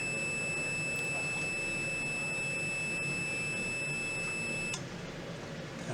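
Multimeter's continuity buzzer sounding one steady high tone that cuts off suddenly about three-quarters of the way through: the controller's output contacts closed, then opening as the input signal is changed with the potentiometer.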